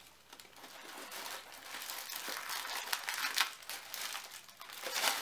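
Plastic wrapping on a packaged item crinkling as it is handled, with irregular crackles that grow busier partway through.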